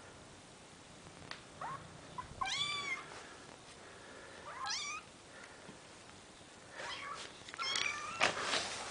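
Young kittens mewing: a few high, thin meows about two and a half, five and eight seconds in, with fainter short mews between. A brief rustle near the end is the loudest sound.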